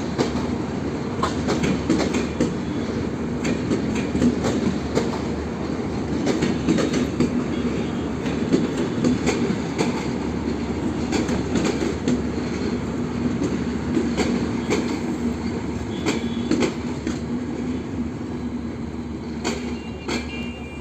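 Passenger train rolling past, its wheels clicking over the rail joints over a steady rumble and hum. The sound eases off slightly near the end.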